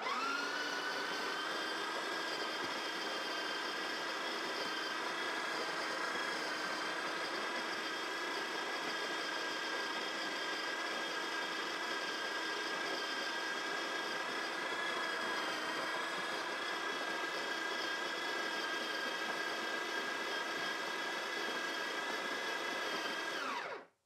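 Built-in conical burr grinder of a Breville Barista Touch Impress espresso machine grinding coffee beans into the portafilter for a double shot. The motor runs steadily, starting at once, then slows and stops near the end.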